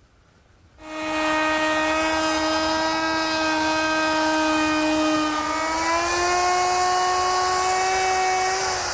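Handheld router with a bearing-guided rabbeting bit cutting a rabbet along the edge of a mesquite top: a steady, high motor whine that starts about a second in, its pitch rising a little about six seconds in.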